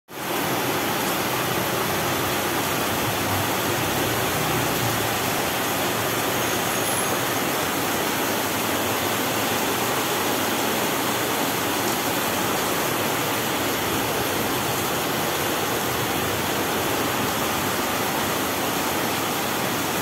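Rain falling steadily, an even hiss.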